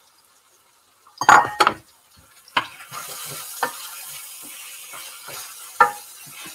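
A clatter of a utensil against the pan just over a second in, then chicken pieces sizzling steadily in a frying pan as they are stirred, with a few light knocks of the spoon against the pan.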